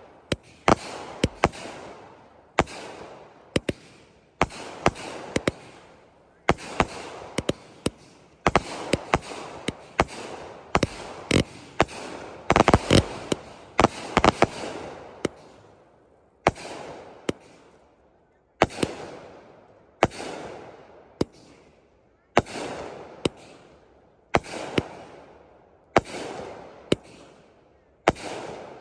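Consumer 200 gram firework cakes firing: sharp shots about every one to two seconds, each trailed by a sound that fades over about a second, with a quick flurry of shots around the middle.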